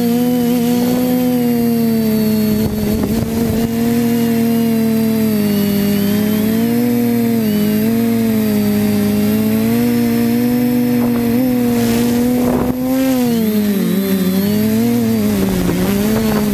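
Quadcopter's electric motors and propellers buzzing loudly, heard from a camera on the craft itself. The pitch wavers up and down as the throttle changes.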